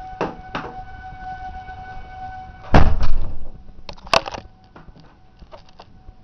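Outdoor tornado warning siren sounding a steady tone, which fades after about three seconds. A few clicks come early, a loud thump about three seconds in, and a couple of sharp knocks a second later.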